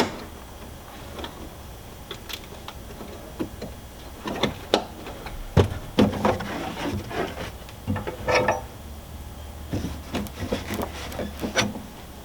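Irregular clicks, knocks and rustling from the truck's rear floor carpet being pushed back into place and its plastic clips snapped into the side trim.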